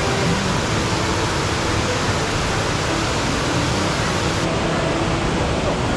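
Steady rush of running water, an even hiss that does not change.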